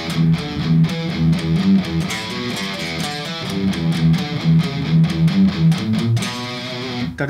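Electric guitar playing a riff phrase slowly, in an even rhythm. Palm-muted notes on the low sixth string alternate with hammered-on notes on the fifth string.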